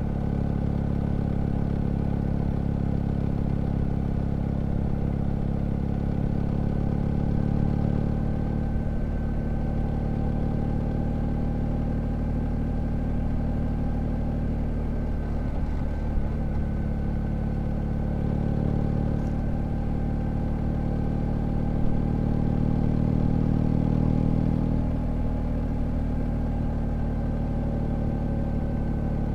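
BMW R1250GS Adventure's boxer-twin engine running at a steady cruise while riding. The note swells and eases a little as the throttle changes, with a brief dip about halfway through.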